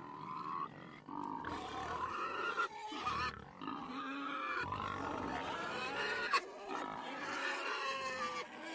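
Several domestic pigs grunting, their calls overlapping without a break.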